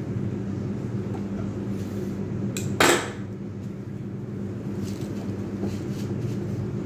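A single sharp clink about three seconds in, from hard objects handled on a stone countertop, over a steady low hum. A few faint clicks follow later.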